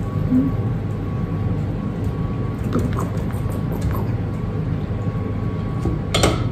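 Hot oil in an electric deep-fat fryer bubbling steadily around battered food, a continuous low rumbling fizz, with a few faint clicks of a slotted spoon.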